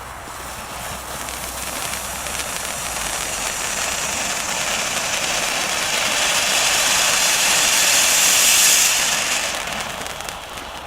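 Firework fountain spraying with a steady hiss that swells over several seconds and then dies away near the end.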